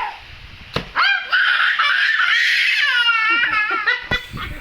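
A young child's long, very high-pitched squeal lasting about three seconds, its pitch wavering in quick pulses near the end.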